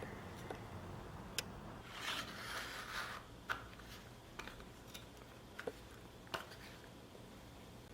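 Faint small clicks and taps scattered throughout, with a brief scraping rustle about two seconds in, as small pieces are handled on a work surface.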